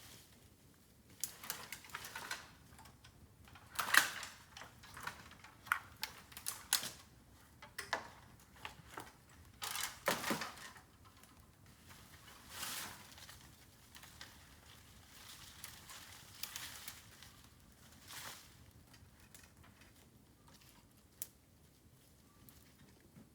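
Bamboo fire crackling and popping: irregular sharp cracks and snaps, the loudest about four seconds in, growing sparse in the last few seconds.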